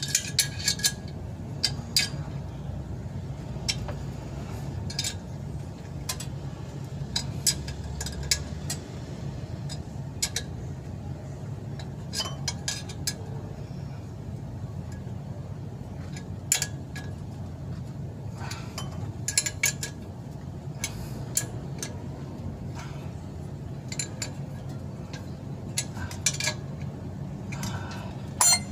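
Sharp metallic clicks and clinks of a wrench on the clutch pressure-plate bolts as they are tightened, coming in small irregular clusters, over a steady low hum.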